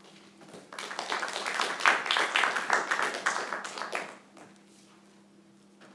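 A small audience applauding for about three seconds, starting just under a second in and dying away shortly after the fourth second.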